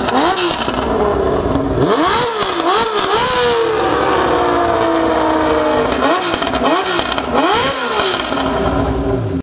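Six-cylinder motorcycle engine being revved in quick throttle blips, its pitch rising sharply and falling back each time. In the middle it drops slowly back toward idle for a couple of seconds, then takes a few more blips near the end.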